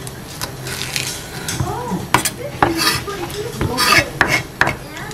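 Chef's knife chopping green onions on a wooden cutting board: a series of sharp knocks of the blade on the wood at an uneven pace, several of them close together near the middle and toward the end.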